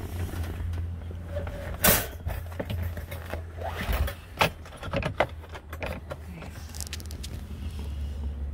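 A wire-mesh live trap clattering and knocking against a plastic pet carrier as the two are handled and pushed together, with sharp knocks about two seconds in and again about halfway through. A steady low hum runs underneath.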